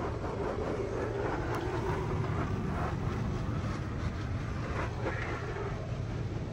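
Ryko SoftGloss MAXX soft-touch automatic car wash heard from inside the car's cabin: a steady low rumble of the machine with water and soapy foam spraying and running over the glass, and cloth brush strips sweeping across the windshield near the end.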